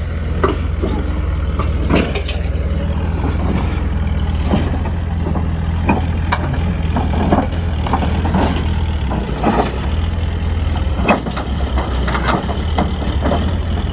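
Heavy diesel engine running steadily, with irregular metallic clanks and knocks through it.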